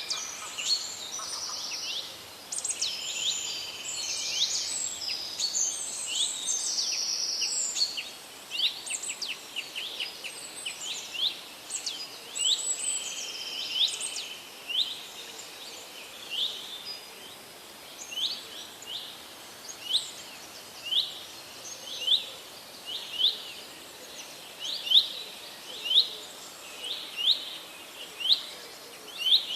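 Forest birds singing, several chirping and trilling at once in the first half; then one bird takes over with a short, sharp call repeated about once a second, growing louder toward the end, over a faint steady hiss.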